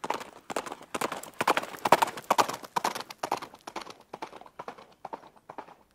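A quick, uneven run of hard clopping knocks, several a second, loudest about two seconds in and then thinning out.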